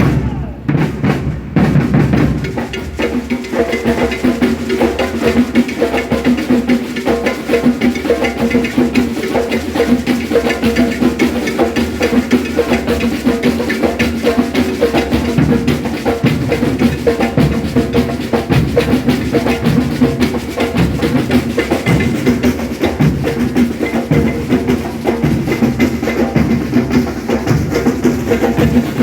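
Maracatu drumming: deep bass drums, snare drums and a clacking wood-block-like beat, playing a steady, dense rhythm.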